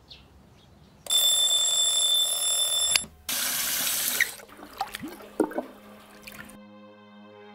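A loud steady rushing hiss with a high ringing tone in it, cut off by a click about three seconds in. Then water runs from a tap into a sink, followed by several splashes as water is splashed onto a face. Soft music with held notes comes in near the end.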